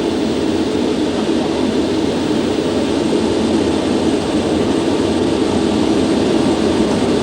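Concorde's four Olympus 593 turbojets at full takeoff power, heard from the flight deck as a steady, loud noise during the takeoff roll as speed builds towards V1.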